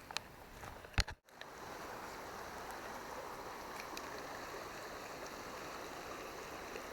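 Small river's water flowing steadily, after a sharp click and a brief break in the sound about a second in.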